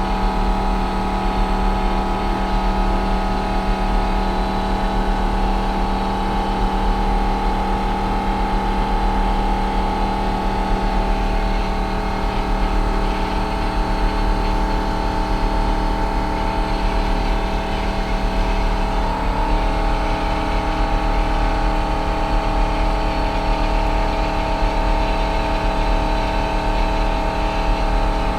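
1968 International 1500C dump truck's V304 V8 engine running steadily at a constant speed, with no revving.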